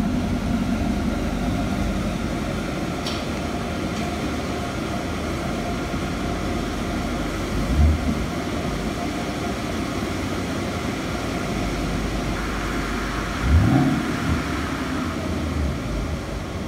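2015 Ford Mustang GT's 5.0-litre V8 running at low revs through a Ford Racing aftermarket exhaust, a steady deep rumble. It is blipped briefly about eight seconds in and again with a short rising rev near fourteen seconds.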